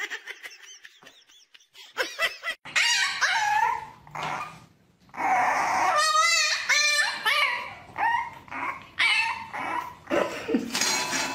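A dog barking and whining, a series of short calls that bend up and down in pitch, starting about two seconds in.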